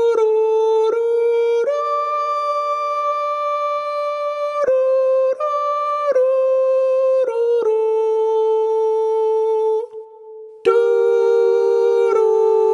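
A cappella humming: one voice holds a slow melody of long, sustained notes. It fades almost away just before ten seconds in, then returns with a second voice humming in harmony.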